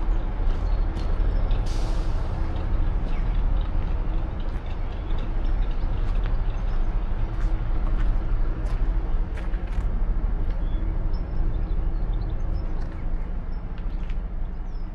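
Diesel bus engine running steadily, with a short hiss of air about two seconds in and scattered light clicks.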